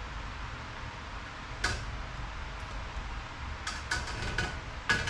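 Scattered sharp metallic clinks and knocks of tools and metal parts being handled: one about a second and a half in, then a quick run of taps near the end.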